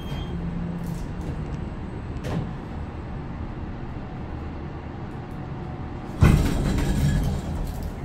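Old traction elevator in motion: a steady low rumble with a short click a little after two seconds, then a sudden loud clatter about six seconds in that rattles on for about a second.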